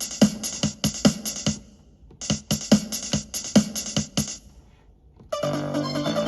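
Roland MT-120 sound module playing a drum-machine pattern of quick, sharp hits that stops, starts again and stops after a couple of seconds; a fuller synthesizer passage with held tones comes in about five seconds in.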